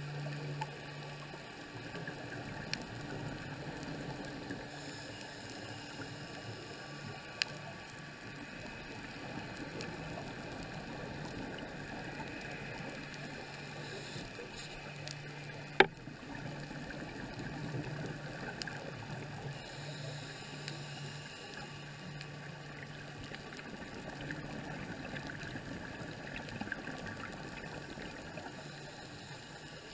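Underwater sound picked up by a diver's camera during a scuba dive: a steady muffled hiss with a low hum that comes and goes, and the diver's regulator breathing and exhaled bubbles every several seconds. A few small ticks, and one sharp click about 16 seconds in.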